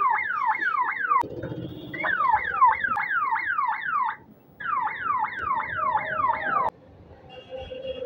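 Police-style siren fitted to an electric scooter, sounding a fast yelp of repeated falling sweeps, about three a second. It plays in three bursts with short breaks between them.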